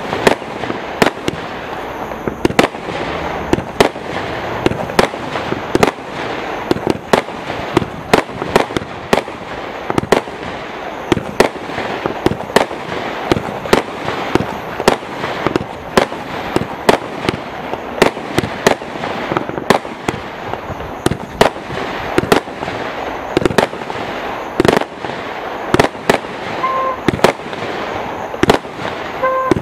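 Total FX Trafalgar combined firework cake firing shot after shot: sharp bangs about two a second over continuous crackling from the bursting stars.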